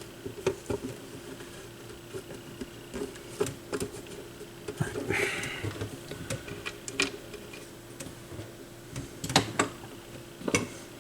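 Scattered small clicks and taps of tools and metal parts being handled while a replacement tonearm is mounted on a turntable, with two sharper knocks near the end, over a steady faint hum.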